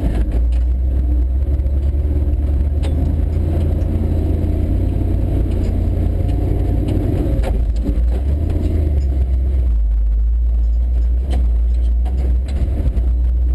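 Lifted Ford F100 pickup's engine running steadily at low trail speed, a deep drone heard from inside the cab, with scattered clicks and knocks throughout.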